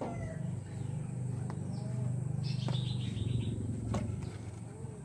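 Asian palm civet growling, a low, steady rasp, with a few faint clicks over it.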